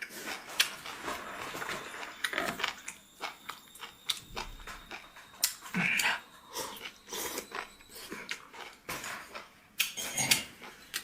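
A person chewing beef tripe close to the microphone, with irregular wet mouth clicks and smacks.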